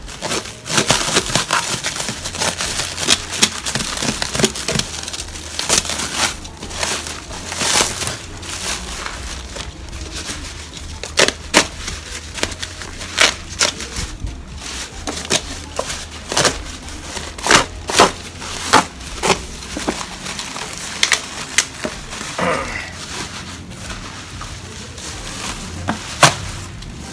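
Packaging being crinkled, crushed and pulled off by hand, with irregular sharp crackles throughout, as a wrapped bicycle frame is unwrapped.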